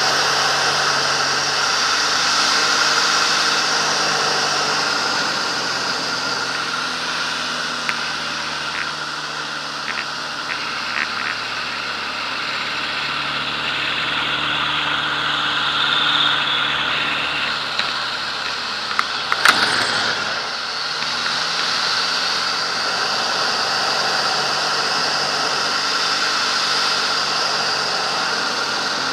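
Aerobatic biplane's piston engine and propeller running under power, heard from inside the cockpit, its pitch and loudness shifting as the aircraft manoeuvres. A cluster of sharp clicks about two-thirds of the way through.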